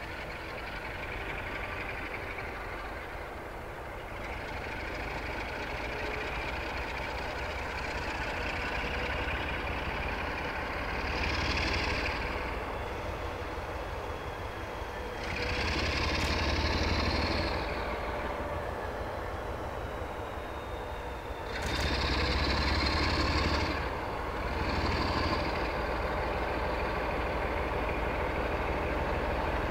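Class 47 diesel locomotive's twelve-cylinder Sulzer engine running, swelling louder in several surges as power is applied to pull the train away.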